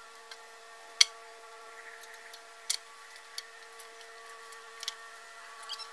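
A steady, high-pitched hum with a run of sharp clicks and knocks over it, the loudest about a second in.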